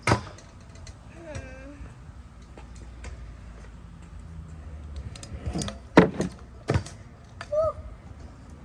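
Kick scooter landing a jump off a curb onto asphalt with a sharp clack right at the start, then its wheels rolling. About six seconds in come the loudest sounds: a few sharp knocks of scooter on pavement, with short calls from a voice here and there.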